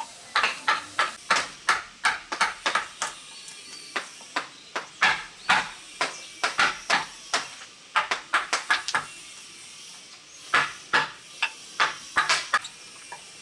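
A hand carving chisel or blade chopping into a block of wood, sharp strikes coming a few per second in runs broken by short pauses.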